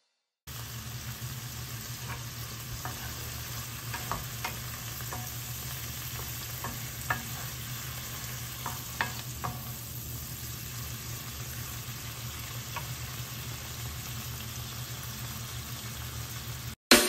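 Sliced bell peppers, zucchini and onion sizzling steadily in oil in a nonstick skillet. A wooden spatula stirs them, scraping and tapping against the pan several times in the first half.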